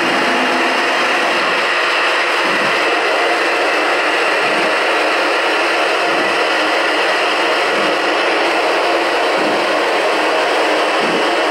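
Gauge 1 model steam locomotive hissing steam from around its cylinders, a steady loud hiss with a soft low chuff about every second and a half.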